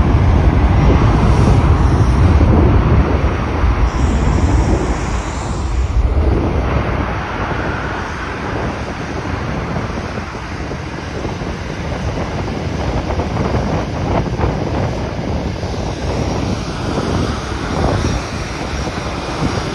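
Jet airliner's engines rumbling as it passes the runway, loudest over the first few seconds and then easing to a steadier, lower level, with wind on the microphone.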